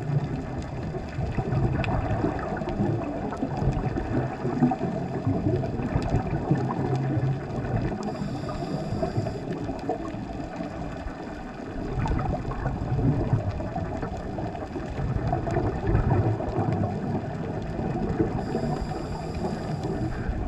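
Underwater ambience heard through a submerged camera: a steady low rumble of moving water with scattered faint clicks and crackles.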